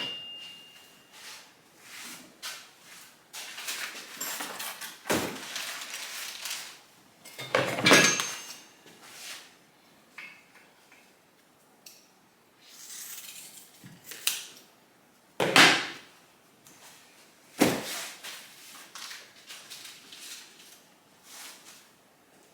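Metal tools and parts being handled: scattered clinks and knocks, with a few louder clatters.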